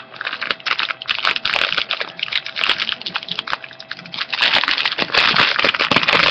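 Crinkly packaging rustling and crackling in irregular bursts as an item is unwrapped by hand, louder and busier in the last couple of seconds.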